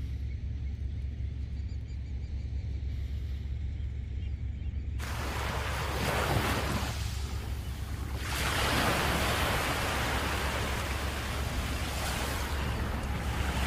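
Wind buffeting the microphone with a steady low rumble. About five seconds in, a louder rushing hiss of wind and surf joins it and strengthens a few seconds later.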